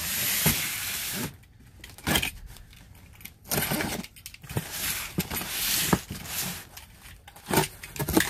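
Box cutter slicing the packing tape on a large cardboard box: several strokes of scraping hiss with clicks and knocks between as the box is handled.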